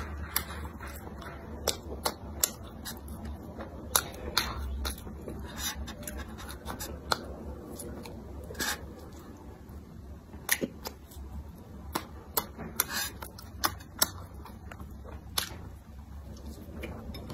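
Close-miked eating sounds of a crumb-crusted fried bread roll being bitten and chewed: many sharp, irregular mouth clicks and crunches.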